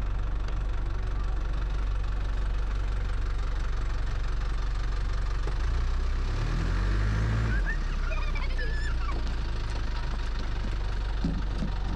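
A 4x4 truck's engine labouring at low revs as it crawls over a slippery stretch of hill track, revving up and back down about six seconds in.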